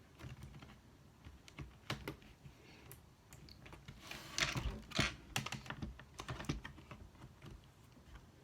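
Hands handling a laptop's replacement LCD panel as it is set into the plastic lid: scattered light clicks, taps and scrapes, busiest and loudest about four to five seconds in.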